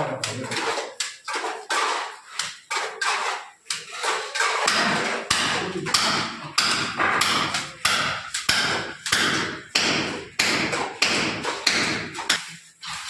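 Mason's trowel working wet cement mortar: quick scrapes and sharp taps, about two a second, as mortar is scooped from a metal pan and pressed onto the plaster wall.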